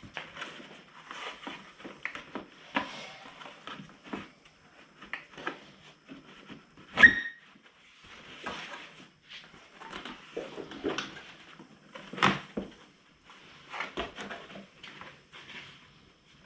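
Plastic side panel of a KTM 1290 Super Adventure being worked off the bike by hand: scattered rubbing, creaking and light knocks, with one sharp snap about seven seconds in as the panel comes free of its mount.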